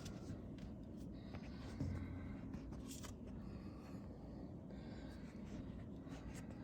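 Faint handling noise from a hand-held phone or camera: light rubbing and a few soft clicks, with a soft bump about two seconds in, over a low steady hum.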